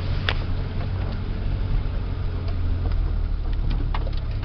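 An engine running steadily with a low drone under a constant hiss, with a few faint knocks and rattles.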